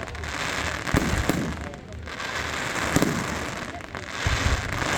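Fireworks display: several deep bangs of bursting shells, about a second, a second and a half and three seconds in, with another low boom after four seconds, over a continuous crackling of sparkling effects.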